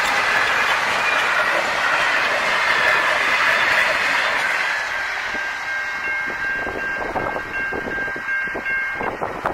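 Stainless-steel passenger carriages of The Overland rolling past on the rails, the train noise slowly fading as the last car clears the crossing. From about halfway through, a steady high ringing tone, the level crossing's warning bell, becomes audible.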